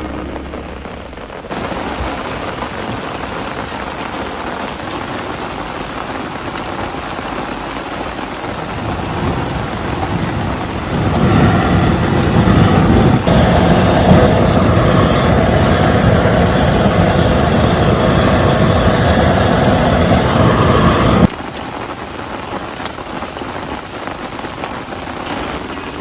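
Heavy rain pouring down in a steady hiss. About eleven seconds in it grows much louder and denser, then drops back abruptly to the softer rain about twenty-one seconds in.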